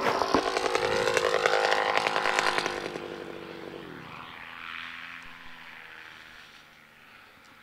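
Paramotor's two-stroke engine and propeller passing close, loud at first. About three seconds in the pitch drops as it throttles back to land, and the sound fades away.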